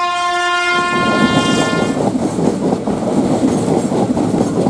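Train horn sounding one steady note that dies away in the first second or two, followed by a passenger train running past, its wheels clattering over the rails.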